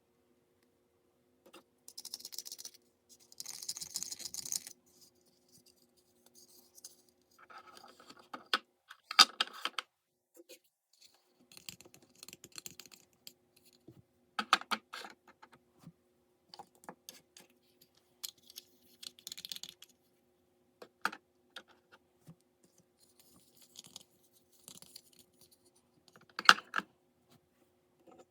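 Unboxing handling noises: scattered sharp clicks and taps of small plastic pieces, with two short hissy rustles of packaging a couple of seconds in and around four seconds in.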